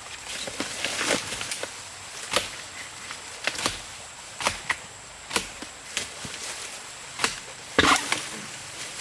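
A blade chopping with a string of sharp, irregular strikes, about one or two a second, the loudest one near the end.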